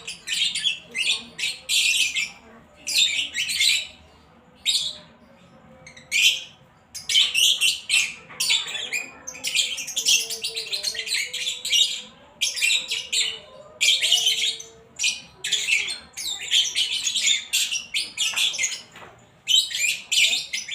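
Male lovebird chirping and chattering in short, high-pitched bursts, with a pause of about two seconds a few seconds in. It is a young male just learning to make its call.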